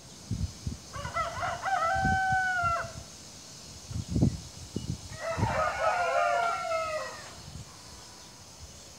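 A rooster crowing twice, each crow about two seconds long with a steady pitch that drops away at the end, with a few short low thumps in between.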